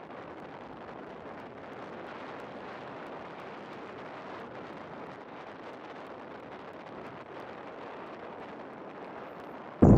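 Steady, even rushing hiss of a bicycle rolling along an asphalt lane: air and tyre noise while riding.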